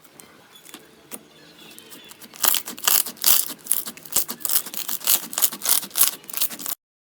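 Slime being squeezed and pressed: a few faint clicks at first, then from about two and a half seconds in a dense run of loud crackling, crunching pops, cutting off suddenly near the end.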